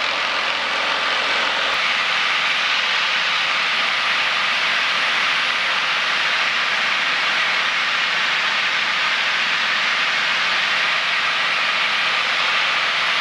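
Steady cabin noise of a single-engine light aircraft in flight: the engine and propeller drone mixed with a hiss of rushing air, holding even throughout.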